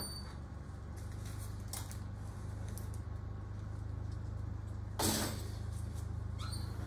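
A metal baking pan set down onto a wall oven's wire rack with a single sharp knock about five seconds in, then a fainter knock near the end, over a steady low hum.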